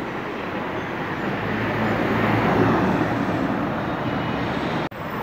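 Street traffic noise, swelling as a vehicle passes about halfway through and then easing off, with a brief gap near the end.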